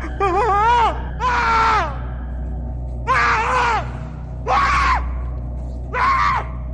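A man screaming in fright: five loud cries, each under a second, most falling in pitch at the end, over a steady low hum.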